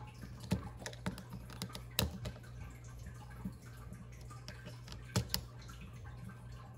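A small screwdriver clicking and scraping on the tiny screws of a plastic Zhu Zhu Pet gearbox housing as they are unscrewed, with scattered sharp clicks; the loudest is about two seconds in, and two come close together near the end.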